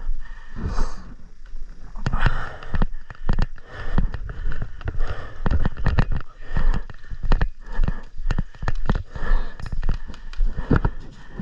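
Irregular bumps, knocks and rustling from a body-worn camera microphone as an airsoft player moves, with breathing and a steady low rumble.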